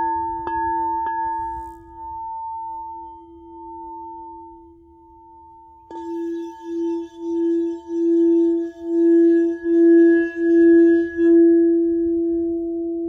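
Crystal singing bowl struck three times in quick succession, its low tone ringing on with a slow waver. About six seconds in it is struck again and then rimmed with the mallet, the tone swelling in pulses, louder with each one, before ringing on steadily near the end.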